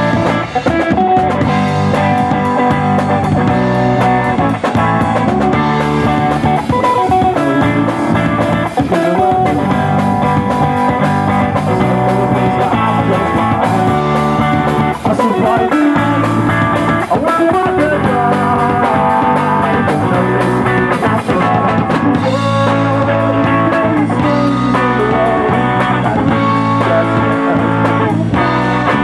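Live rock band playing: electric guitar, bass guitar and drum kit, with a singer at the microphone.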